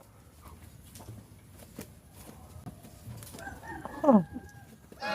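A farm bird gives one short, loud call about four seconds in, sliding steeply down in pitch. Just before it there is a faint thin held note, and scattered soft clicks run through the otherwise quiet stretch.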